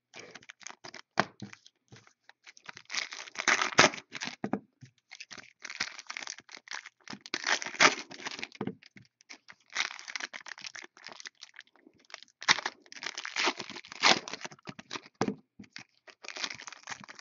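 Plastic wrapping on a 2014 Totally Certified football card box being torn and crumpled by hand, in crinkling bursts with short gaps and a few sharp cracks.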